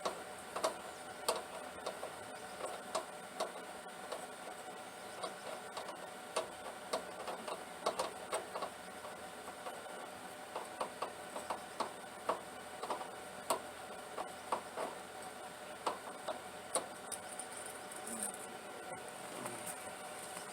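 Ratchet wrench clicking in short, irregular runs while a spark plug is being loosened and taken out.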